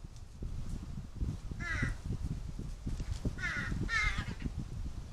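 Large-billed crow cawing three times: one harsh caw just under two seconds in, then two more in quick succession around three and a half to four seconds. A constant low rumble of strong wind on the microphone runs underneath.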